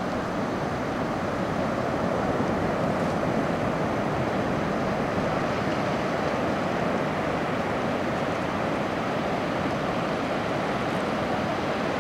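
Sea surf breaking and washing onto a sandy beach: a continuous, steady rushing noise.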